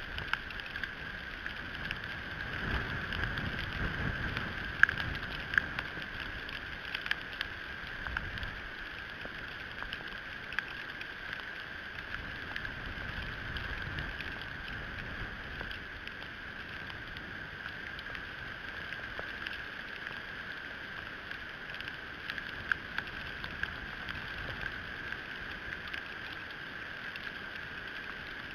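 Ice pellets falling on an eagle nest of sticks and grass, landing as scattered sharp ticks over a steady hiss. Low wind rumbles on the microphone swell in the first few seconds.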